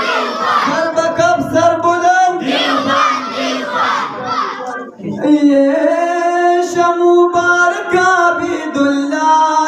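Men in a crowd shouting a slogan together in two bursts; then, about five seconds in, a male naat reciter sings a slow melodic line with long held notes.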